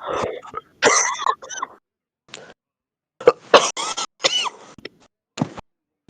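A heavy smoker coughing in fits: a run of several coughs near the start, a single cough, then a second, denser run of coughs about three seconds in, and one last cough near the end.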